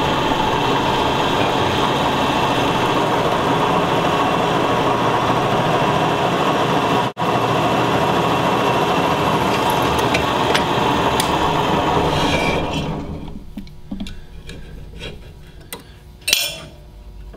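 Drill press drilling a hole through two stacked steel knife blanks held in a fixture: a steady grinding run for about twelve seconds that then fades away, followed by a few light metal clicks.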